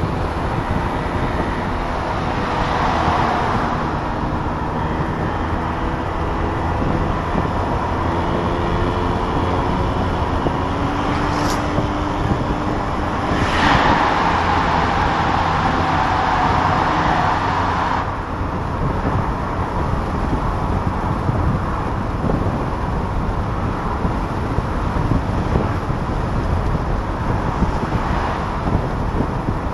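A 1994 Saab 900 S convertible's four-cylinder engine, tyres and wind rushing through the open cabin at motorway speed, with the top down. The noise swells for a few seconds a little before halfway, as the car passes through a tunnel.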